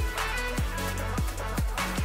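Electronic background music with a steady beat of deep kick drums that drop in pitch, over held bass notes and swishing sweeps.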